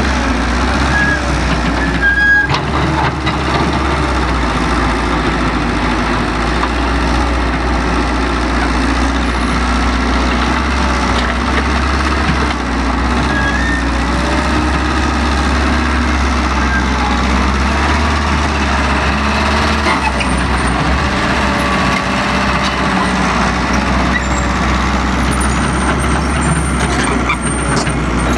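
Excavator's diesel engine running steadily under load, with hydraulic whine that wavers up and down, and a sharp knock about two seconds in.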